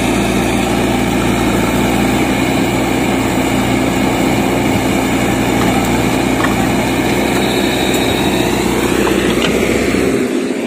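JCB 3DX backhoe loader's diesel engine running steadily under load while the backhoe arm dumps soil and swings back to dig, with a faint rising whine near the end.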